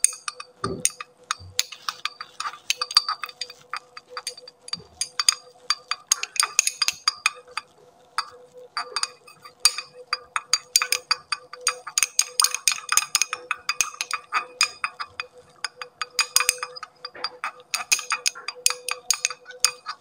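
Glass stirring rod clinking rapidly and irregularly against the inside of a glass beaker while stirring an ammonium salt into water to dissolve it, with a faint steady hum underneath.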